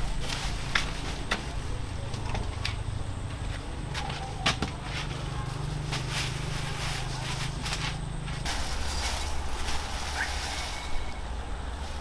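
Footsteps on a concrete floor, then a plastic bag crinkling as it is handled, over a low steady hum.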